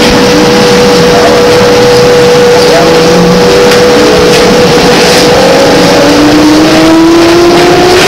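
Trolleybus with Brown Boveri electric propulsion, heard from inside: the traction motor's whine holds steady, easing slightly down in pitch. From about six seconds in a new whine rises steadily in pitch as the bus picks up speed, over cabin rattle and road noise.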